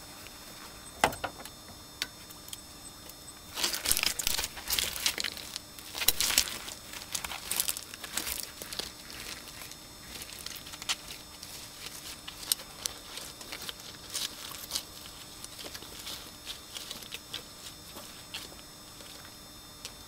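Manual wheelchair wheels crunching and rattling over loose river stones, loudest for several seconds near the start, then thinning to scattered clicks and crackles as the chair rolls away.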